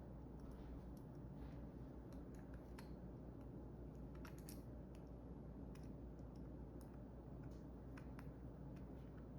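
Faint, irregular small clicks and ticks from wire crimp connectors and hand tools being handled, a dozen or so spread unevenly, over a steady low hum.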